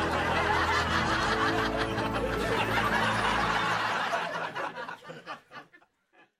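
Group laughter over light background music, fading away about five seconds in to silence.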